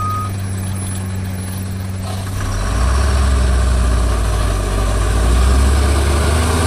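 Tata 12-wheel truck's diesel engine running low, then pulling harder and louder from about two and a half seconds in as the loaded truck moves off up the slope.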